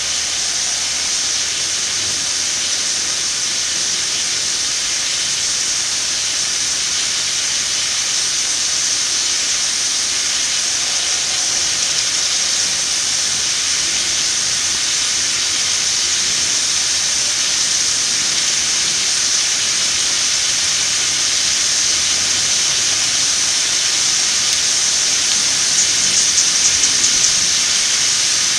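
Steady hiss of water spraying during garden watering. Near the end, a brief rapid run of ticks sounds over it.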